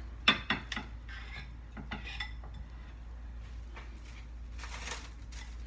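Serving utensils clinking and scraping against a plate as salad is dished out, with one sharp clink near the start and lighter scattered clinks after.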